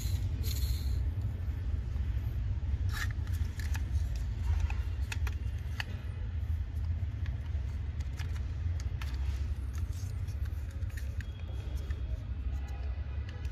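Scattered light clicks and taps, like small parts and tools being handled, over a steady low rumble.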